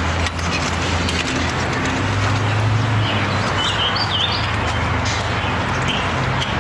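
Hot oil sizzling steadily in a frying pan over a charcoal fire, with a low steady hum underneath. A bird chirps a few times about three to four seconds in.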